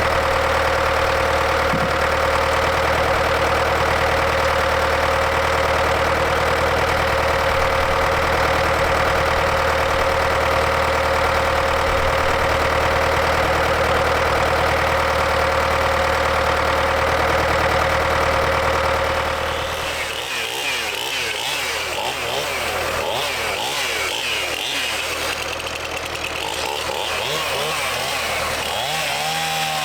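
An engine idling steadily. About two-thirds of the way through it gives way suddenly to a different, unsteady engine sound with a wavering pitch.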